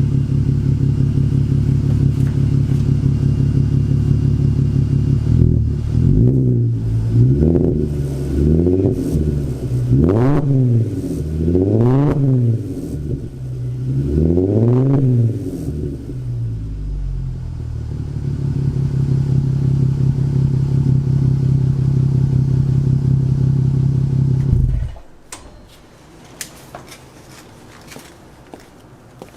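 Volkswagen Eos VR6 engine through an aftermarket Magnaflow 10416 muffler exhaust, idling, then blipped through a series of quick revs that rise and fall, settling back to a steady idle. The engine is switched off about 25 seconds in, leaving a few faint clicks.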